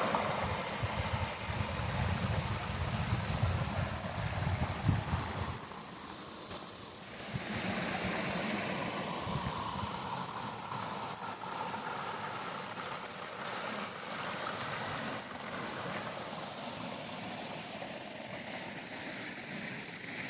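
Steady rush of water from a waterfall and its stream. For about the first five seconds, low gusts of wind on the microphone rumble over it.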